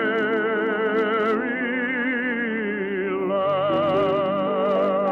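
Baritone singing a long-held note with a wide vibrato in a romantic operetta love song, with musical accompaniment; the voice moves to a new note about three seconds in. Heard on an old radio recording with no high treble.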